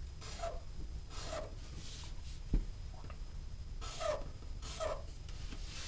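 Black marker scratching across paper in short strokes, two pairs of quick lines. There is a soft knock about two and a half seconds in.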